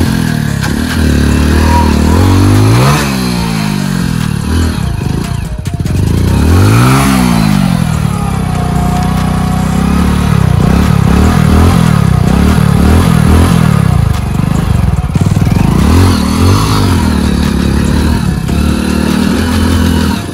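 Hero Splendor motorcycle's single-cylinder four-stroke engine revved hard again and again as the stuck bike is pushed to break free. There are two big rises and falls in the first seven seconds, then a run of quicker blips.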